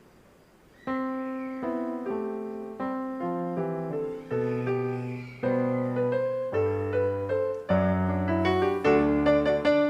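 Keyboard playing piano chords over a bass line, struck about twice a second, starting about a second in after near silence.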